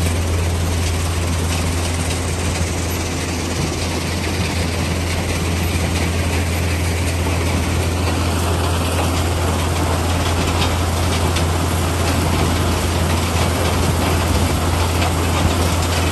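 Metso portable track crushing plant running at full work: a steady, deep machine drone with a broad rushing clatter of crushed rock pouring off the discharge conveyor onto the stockpile.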